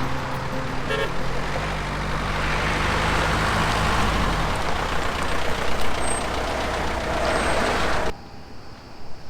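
Motor vehicle driving: steady engine and road noise, with the engine note rising as it picks up speed in the first few seconds. It cuts off suddenly about eight seconds in, leaving much quieter background sound.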